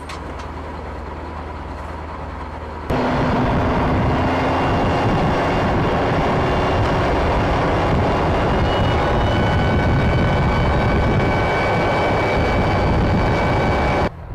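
Steady low hum of the running howitzer inside its crew compartment. About three seconds in, the sound jumps to a louder, steady engine noise with a faint whine, from a tracked Paladin self-propelled howitzer running in place.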